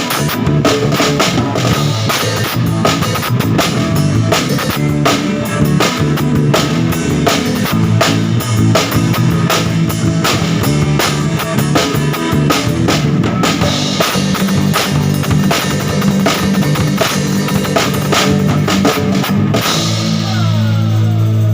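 Rock music played with a full drum kit, busy steady drum strokes over guitar and bass. Near the end the drums stop and a held chord rings on.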